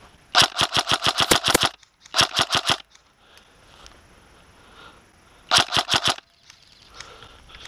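Airsoft electric rifle, a Tokyo Marui HK416 DEVGRU, firing full-auto in three bursts at about nine shots a second: a long burst about half a second in, a shorter one right after, and another short burst near the end.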